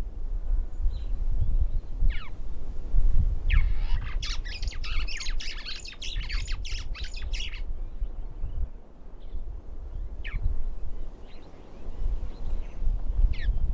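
Wild birds calling: short falling notes every few seconds, with a dense burst of chattering calls from about three and a half to seven and a half seconds in, over a steady low rumble.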